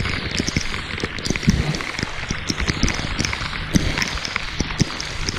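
Heavy hurricane rain: a steady hiss with many sharp taps of drops striking the camera, and low knocks and sloshing from someone wading through deep floodwater.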